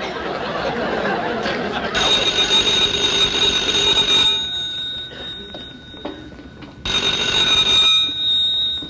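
Telephone bell ringing twice, each ring about two seconds long with a few seconds between, after a murmur of studio audience laughter at the start.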